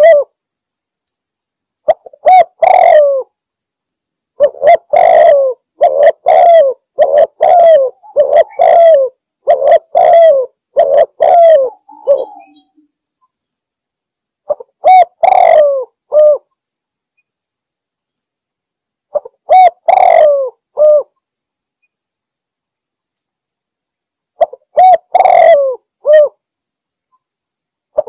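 Spotted dove (tekukur) cooing in repeated phrases of a few coos each, separated by silent gaps, with a long unbroken run of coos from about four to twelve seconds in.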